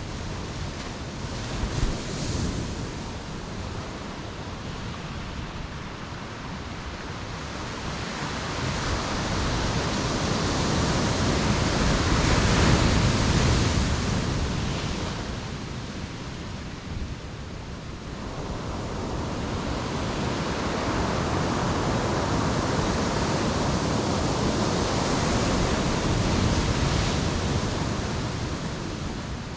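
Ocean waves breaking on a beach and washing back, swelling and ebbing in slow surges, with some wind on the microphone.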